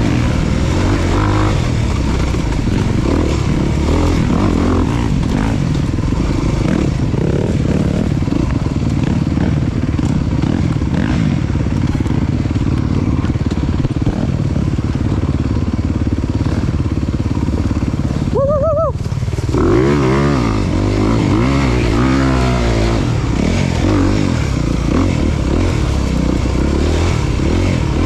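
Off-road motorcycle engine running hard as the bike is ridden, its revs rising and falling continually, with a sharp climb in revs about two-thirds of the way through.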